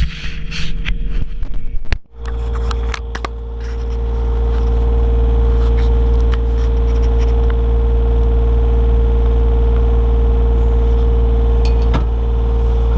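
Komatsu PC28 mini excavator running, a steady engine drone with a steady whine over it. There are a few clanks and scrapes in the first few seconds and a brief dropout about two seconds in.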